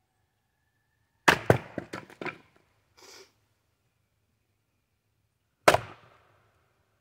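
A Fiskars X27 splitting axe strikes a red oak log with one sharp, loud blow near the end. About a second in there is a quick run of wooden knocks and clatters.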